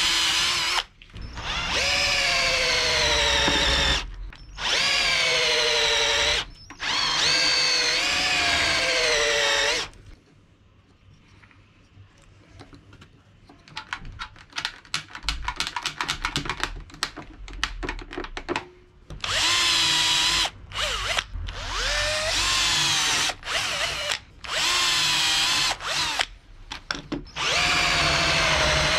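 Cordless drill running in repeated bursts as it drills and then countersinks holes through a metal plate into wood. Its motor whine sags in pitch as the bit bites and recovers between cuts. Midway there is a few-second lull with a quick run of light clicks.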